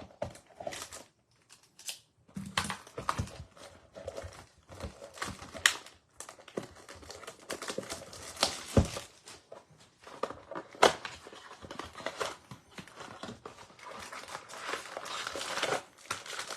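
Plastic wrapping crinkled and torn as a Topps Update baseball-card blaster box is unwrapped and opened and its packs handled. Irregular crackles and sharp snaps.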